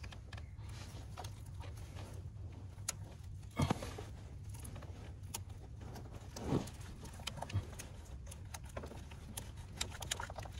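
Scattered small clicks and knocks of a fuel injector and its fuel rail being worked loose by hand, with two louder knocks about three and a half and six and a half seconds in, over a low steady rumble.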